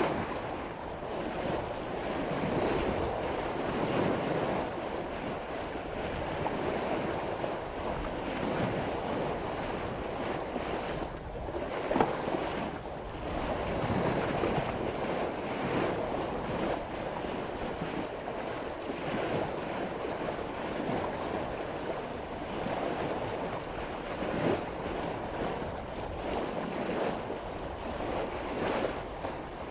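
Sea water rushing and splashing along the bow of a sailboat cutting through waves at about 5 knots, swelling and easing with each wave, with one sharper splash about halfway through. Wind buffets the microphone.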